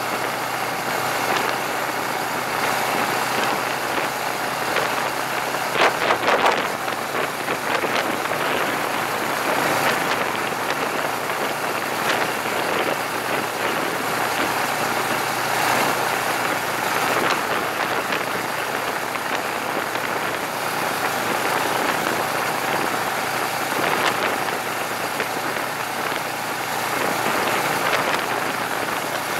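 Wind rushing past a camera mounted on a moving motorcycle, with the motorcycle's engine running steadily underneath. A brief louder buffeting comes about six seconds in.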